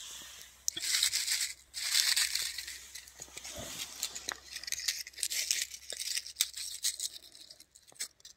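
Dry fallen leaves rustling and crackling as a horse chestnut husk is picked up out of them, then crackling and small snaps as the green husk is split open by hand.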